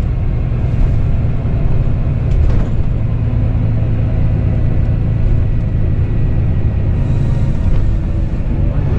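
Volvo B9R coach with a Caetano Levante body heard from inside the passenger cabin: its 9.4-litre six-cylinder diesel engine runs with a steady low drone under road and tyre noise as the coach drives along.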